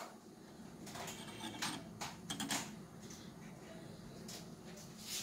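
A few faint taps and clicks of kitchen handling in a quiet room as an egg yolk is tipped from a small cup into a stainless steel mixing bowl, most of them in the first couple of seconds and one more near the end.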